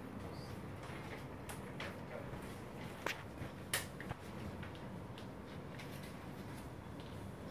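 Quiet room hum with a few sharp little clicks and rustles, the loudest about three and almost four seconds in: pens and paper sheets being handled at desks.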